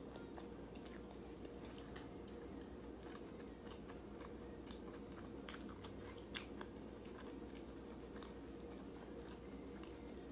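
A person chewing and biting food close to the microphone, with scattered small crunches and mouth clicks, over a steady low hum.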